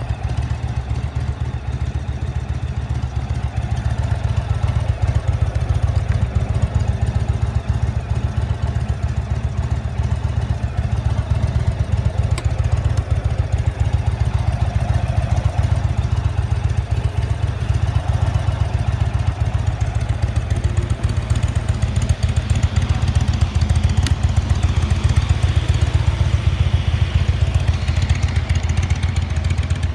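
Indian Roadmaster's V-twin engine idling steadily, with a fast, even low pulsing.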